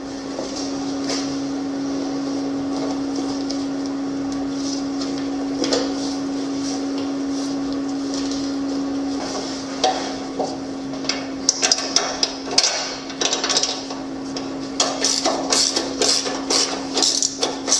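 Hammer striking in a workshop: about two-thirds of the way in it breaks into a rapid series of sharp knocks, several a second, over a steady hum.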